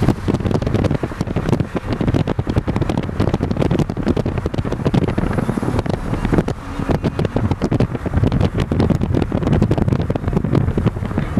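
Road and wind noise of a car cruising at highway speed, with wind buffeting the microphone in quick gusts.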